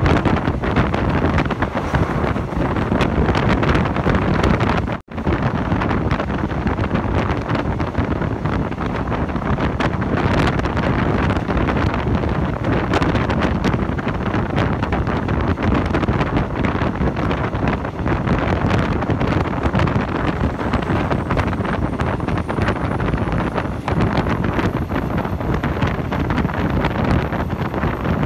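Steady wind rushing over the microphone mixed with the running noise of a moving train, heard at an open carriage window. The sound cuts out for a moment about five seconds in.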